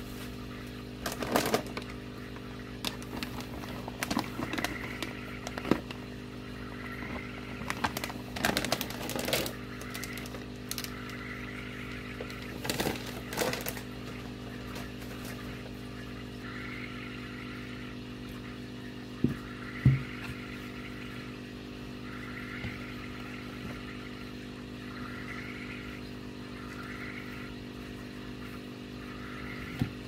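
Plastic bags crinkling in irregular spells as they are handled and lifted out of the tank, over a steady low mechanical hum. A couple of sharper knocks come about two-thirds of the way through.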